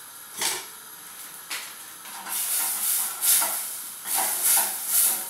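Butter sizzling as it starts to melt in a saucepan on a gas hob, coming in repeated hissing surges from about two seconds in. Two light knocks sound in the first second or so.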